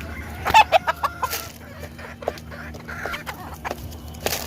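Gamefowl clucking in a pen in short, low clucks. A cluster of sharp clicks and knocks comes about half a second in, and one louder knock near the end.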